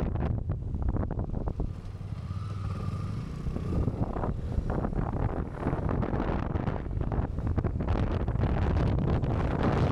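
Wind buffeting the microphone while riding a Vespa GTS 300 scooter at road speed, with the scooter's single-cylinder engine running underneath. The wind eases a little about two seconds in, then builds again.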